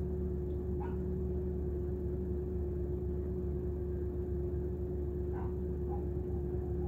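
Steady low hum of a stationary car, heard from inside the cabin. A dog barks faintly in the distance, once about a second in and twice near the end.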